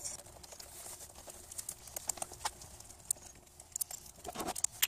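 Light, irregular clicks and taps of a socket, metal terminal hardware and the plastic terminal cap being handled as wire connectors are taken off a car battery's positive terminal, with a slightly louder cluster of knocks about four and a half seconds in.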